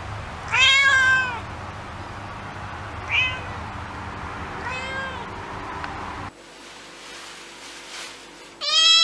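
Domestic cats meowing. One cat gives a loud meow that rises then falls about half a second in, a short one around three seconds and a fainter one around five seconds. Near the end a kitten starts a long, loud meow.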